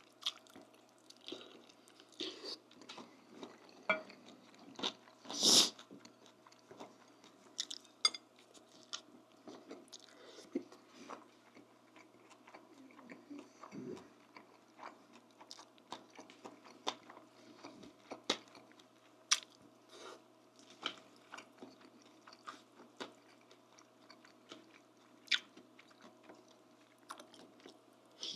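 Close-miked chewing and mouth sounds of someone eating, with irregular wet clicks and occasional crunches; the loudest crunch comes about five and a half seconds in. A faint steady hum runs underneath.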